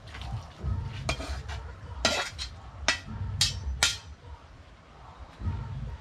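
Metal utensils clinking against a cooking pan and dishes: about five sharp clinks and a short scrape between one and four seconds in.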